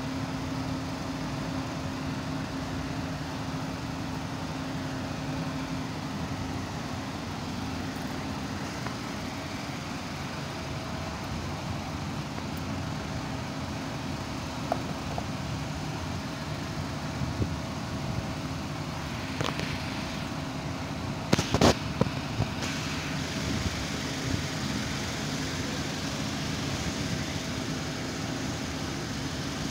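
Steady low mechanical hum, with a few scattered sharp knocks and a louder quick cluster of knocks about two-thirds of the way through.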